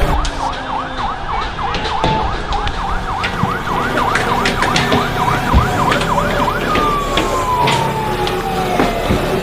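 Emergency siren in a fast yelp, rising and falling about three times a second. About two-thirds of the way through it switches to a single slow tone that glides steadily downward. Under it runs a dense noisy din with scattered sharp cracks.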